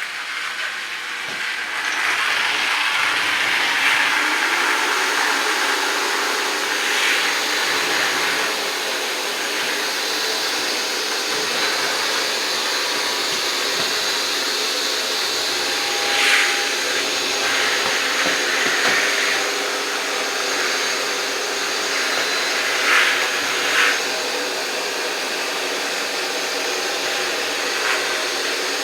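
iRobot Roomba Plus 505 combo robot vacuum cleaning: a steady whirring of its suction fan and brushes. It grows louder about two seconds in, with a few brief louder swells later on.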